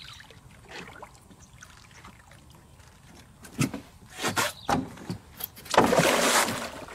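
A hooked toman (giant snakehead) thrashing at the water's surface: a few splashes from about three and a half seconds in, then a big burst of splashing near the end.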